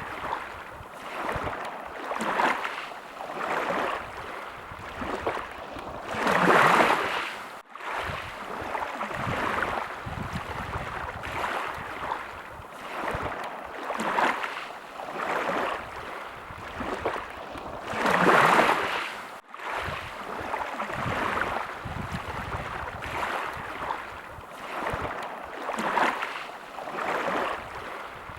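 Small sea waves washing in one after another every second or two. Twice a bigger wave swells up and then cuts off suddenly.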